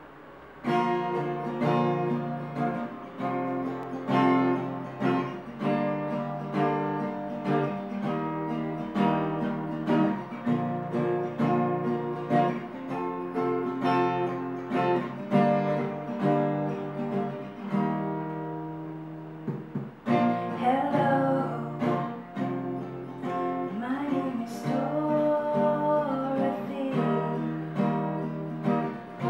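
Acoustic guitar strumming chords in a steady rhythm, with a singing voice joining in about two-thirds of the way through.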